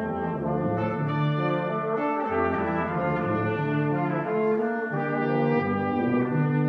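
Brass ensemble of trumpets, French horn and trombones playing held chords that change about once a second over a stepping bass line.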